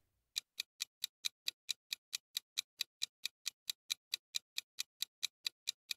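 Countdown timer sound effect: a steady clock-like ticking, about four ticks a second.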